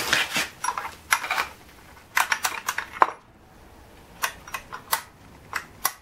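Short, sharp metallic clinks and knocks at uneven spacing as a freshly welded steel bracket is handled in the jaws of a bench vise, the metal parts knocking together.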